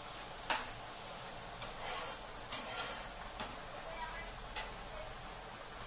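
Slotted metal spatula scraping and knocking against a karahi while capsicum and onion are stir-fried, with a steady light sizzle of hot oil underneath. About seven sharp scrapes and knocks, the loudest about half a second in.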